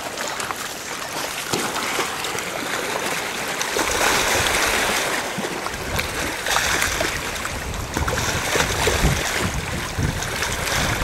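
Shallow river water splashing and sloshing around a landed paddlefish held down in it by hand, with wind rumbling on the microphone, heavier from about four seconds in.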